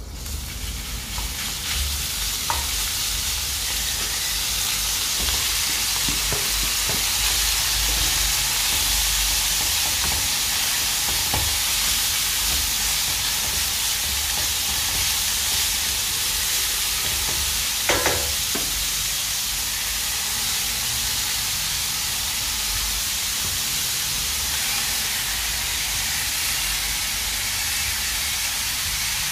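Ragù ingredients frying and sizzling steadily in a pan, building up over the first couple of seconds, with a few light knocks and a sharper clink about two-thirds of the way through.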